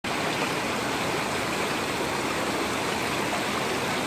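Steady rushing of a small cascading waterfall and the shallow rocky creek flowing below it.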